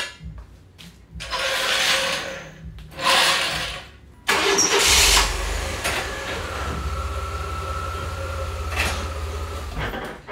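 A metal clank, then a GMC Sonoma pickup's engine being cranked in two tries, catching about four seconds in and running with a steady low rumble as the truck is pulled forward.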